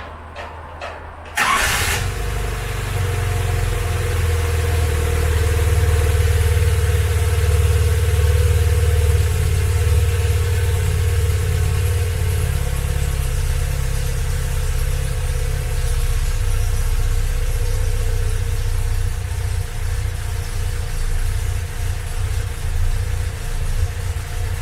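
Skoda petrol engine starting about a second in and settling into a steady idle, running with its newly fitted mechanical fuel pump.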